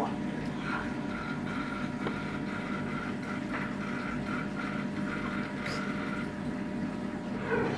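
Steady low hum with a wash of moving water, typical of an aquarium filter pump running. A faint, broken high tone comes and goes over it.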